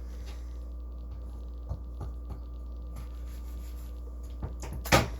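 A few light taps and small knocks of kitchen handling over a steady low hum, with a louder short clatter near the end.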